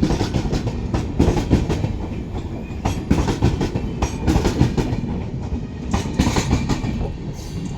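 Jammu Tawi–Tatanagar Superfast Express passenger train running, its wheels clattering over the rail joints with a steady low rumble and frequent clicks and knocks.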